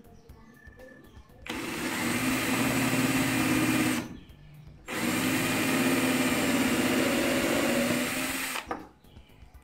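Worx Switchdriver cordless drill running at a steady pitch, driving a thin twist bit through a keyless chuck on a hex adapter into a small block of wood. It runs twice, for about two and a half seconds from about a second and a half in, then after a one-second pause for nearly four seconds more.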